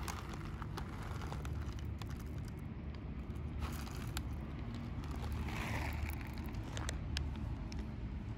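A street cat eating the food it has just been given, with scattered small crunching clicks, over a steady low rumble of traffic.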